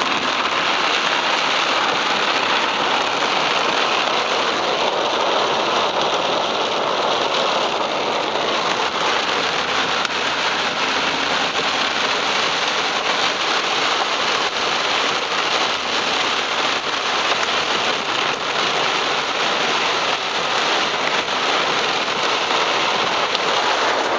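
Heavy rain pelting a car's roof and windshield, heard from inside the moving car: a steady, dense hiss.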